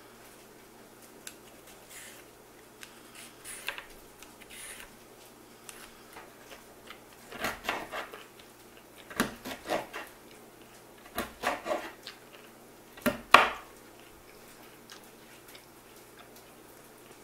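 A vegetable peeler scraping along a carrot in faint strokes, then a kitchen knife chopping the carrot on a wooden cutting board in several short runs of quick knocks starting about seven seconds in, the loudest run near the end.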